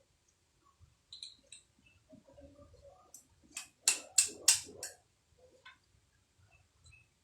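Metal engine parts or hand tools clinking and tapping during engine assembly. Scattered light clicks are followed, about halfway through, by a quick run of about five sharp metallic strikes.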